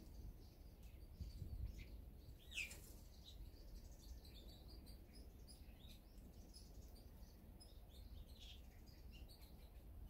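Faint chirps and calls of small wild birds, many short high chirps scattered throughout, with one louder falling call about two and a half seconds in, over a steady low background rumble.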